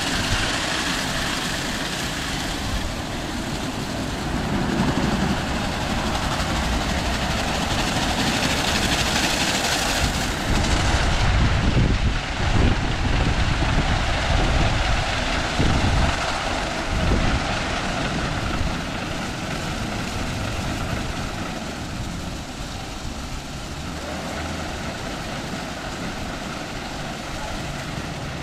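Aquarama Stargate S10 rollover car wash gantry at work on a car: a steady, loud machine-and-spray noise. About a third of the way in, the hiss thins and a deeper rumble takes over for several seconds before easing.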